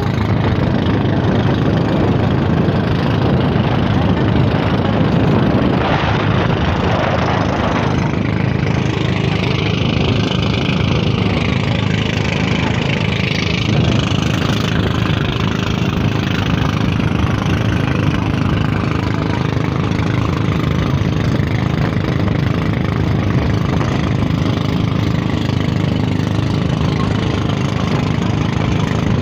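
Outrigger boat's engine running steadily.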